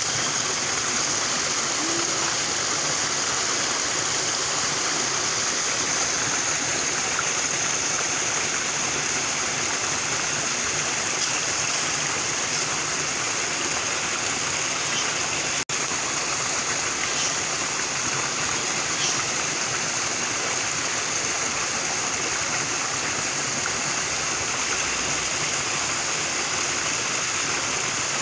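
Steady rushing noise of running water, unbroken apart from a momentary dropout about halfway through.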